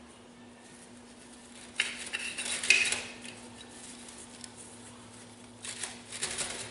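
Metal clinking and rattling of bolts and tools being worked into the track of a Bobcat skid steer. There are two bouts: a louder one about two seconds in, and a shorter one near the end.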